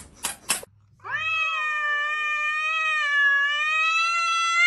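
A few short clicks, then a cat's single long, drawn-out yowl with a slightly wavering pitch, aimed at another cat in a face-off: an aggressive, warning call.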